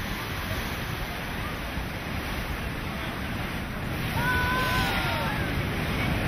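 Hurricane-driven surf breaking on a rocky shore, with strong wind on the microphone; it gets louder about four seconds in. A short high-pitched tone sounds briefly over it about a second later.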